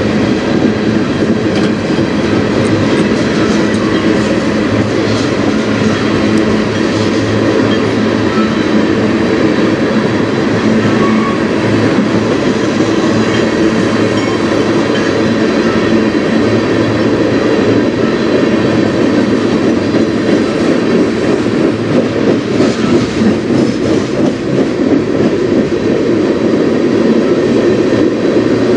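Cars of a long CN mixed freight train (hoppers, tank cars, autoracks) rolling past: a loud, steady rumble of steel wheels on the rails.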